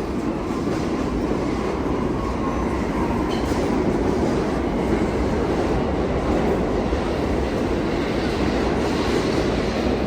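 New York City subway train running along the track, a loud steady noise of wheels on rail.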